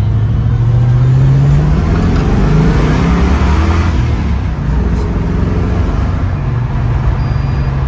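1967 Camaro's swapped-in LS V8 running under acceleration, its pitch rising through the first half, then settling into a steady drone.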